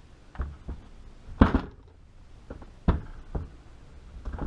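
A series of short knocks and thuds from a bolt-action rifle being handled and shifted in its padded rest. The loudest comes about a second and a half in.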